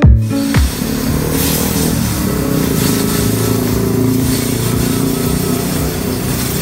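A motor running steadily with a hiss of spraying, as a spray nozzle is aimed at the underside of a Yamaha NMAX scooter's engine behind a metal splash shield. A bit of guitar music ends about half a second in.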